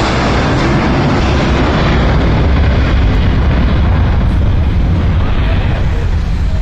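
Twin turbofan engines of an Airbus A321 airliner at takeoff thrust: loud, steady jet noise with heavy low end that grows louder about two seconds in and begins to ease near the end.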